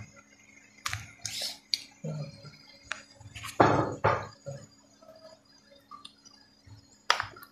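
Potato chunks being dropped one after another into a pressure cooker pot of liquid spinach, landing with several wet plops and knocks against the metal. The loudest comes about three and a half seconds in, and one more follows near the end.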